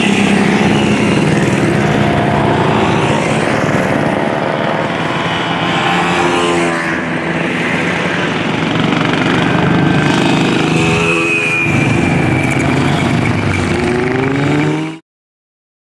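Several vintage motorcycle engines running as the bikes ride past one after another, the pitch of each sliding up and down as it goes by. The sound cuts off abruptly near the end.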